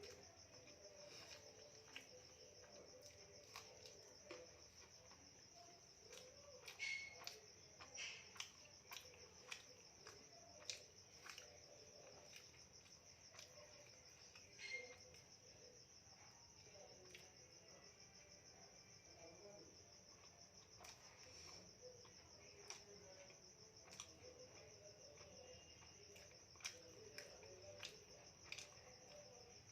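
Crickets chirring steadily at a high pitch, with scattered soft clicks and taps of eating.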